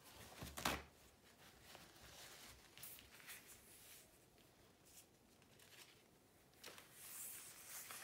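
Faint tabletop handling sounds: a sharp knock about half a second in, small rustles of a paper towel and swatch cards, then near the end a longer rustle as a large sheet of synthetic paper is slid and turned on the table.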